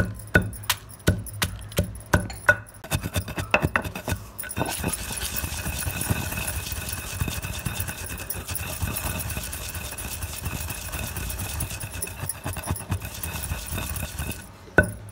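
Pestle pounding dry red chillies and salt in a stone mortar, sharp strikes about two a second. After about four seconds a steady engine-like drone with a high whine comes in and covers the pounding for some ten seconds; the strikes come through again near the end.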